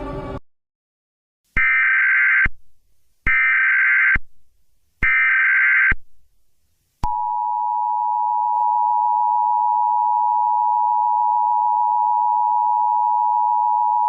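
Emergency Alert System tones, the signal that opens a new alert. First come three short SAME header data bursts, about a second each with a second between them. Then, about seven seconds in, the steady two-tone EAS attention signal starts and holds on.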